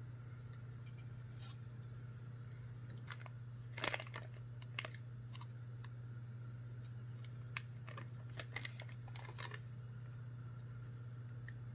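Plastic spice packet crinkling and rustling in short bursts as it is handled and opened, with a few sharp clicks, the loudest crackle about four seconds in, over a steady low hum.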